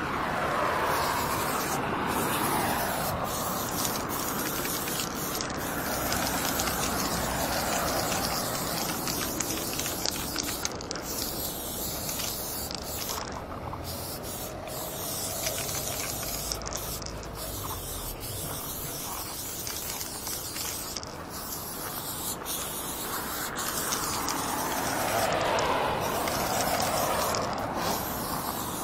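Aerosol spray paint can hissing in long sprays as lines are painted, the tone of the hiss shifting as the can sweeps along, with a few brief breaks.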